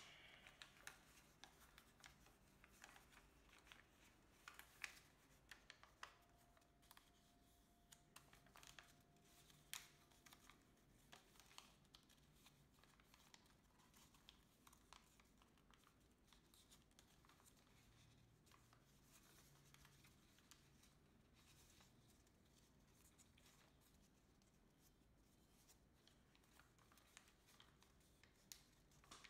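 Faint, irregular crinkling and crisp ticks of colour paper being folded and creased by hand, very quiet overall.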